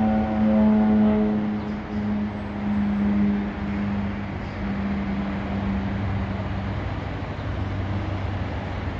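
Beech C-99 Airliner's twin turboprop engines at takeoff power as it lifts off and climbs away: a steady propeller drone with a thin high whine, fading gradually as the aircraft moves off.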